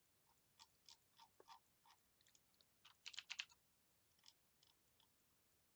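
Faint computer keyboard keystrokes: scattered single taps with a quick run of several keys about three seconds in.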